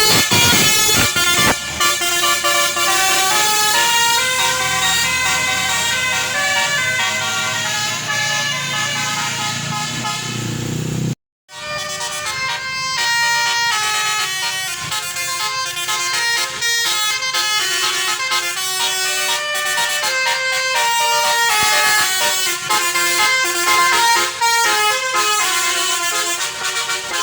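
Tour-bus Basuri 'telolet' musical horns playing tunes in quick stepped notes, over the low drone of a bus engine. The sound breaks off about 11 seconds in and another horn tune starts.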